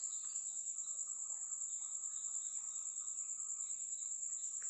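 Steady high-pitched background trill, pulsing quickly and evenly, with no other sound over it.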